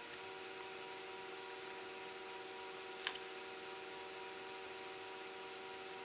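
Steady faint hiss with a constant hum of several held tones: background noise of the recording. Two quick clicks about three seconds in.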